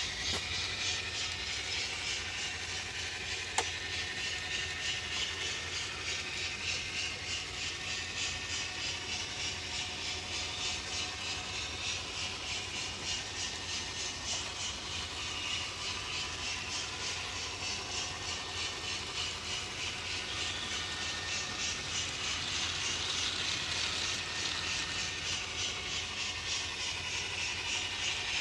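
Model train locomotive running with its DCC sound decoder playing: a steady hiss with a fast, even rhythm over a low hum. One sharp click about three and a half seconds in.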